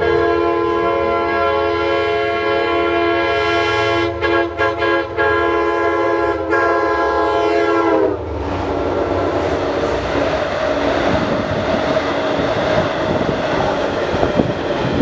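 DE30AC diesel locomotive's K5LA air horn, which the uploader calls weak and fried, blowing a sustained chord with a few short breaks about four to five seconds in. It cuts off with a slight drop in pitch about eight seconds in as the train reaches the platform. Then comes the rush and clatter of the passing coaches' wheels on the rails, over a low drone.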